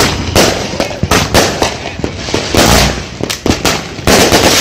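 Mr Moneybags multi-shot firework cake firing: a quick, irregular series of shots and aerial bangs, about two or three a second, with a continuous crackle and hiss between them.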